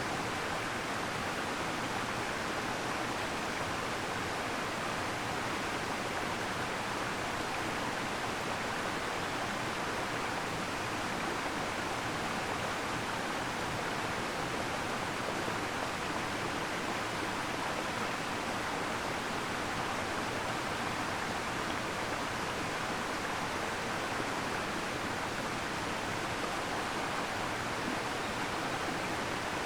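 Waterfall: water falling in a steady, even rush that does not change.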